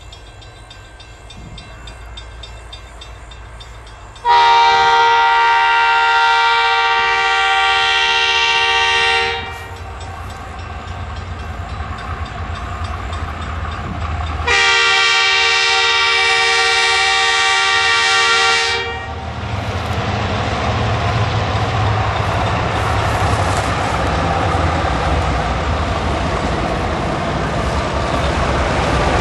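Lead diesel locomotive ZR2101 of a freight train sounding two long horn blasts for a level crossing as it approaches, each about five seconds. After the second blast the locomotives' engines grow steadily louder as they draw close and pass.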